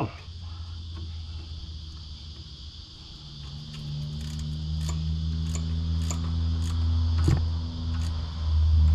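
A low, steady engine-like hum of a motor vehicle that grows louder from about three seconds in, with a few light sharp clicks over it.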